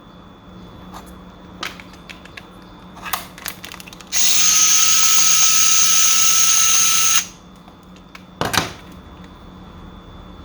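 A small handheld power tool runs steadily for about three seconds, a loud even hiss with a high whine, starting and stopping abruptly. Light clicks and taps of parts being handled come before and after it.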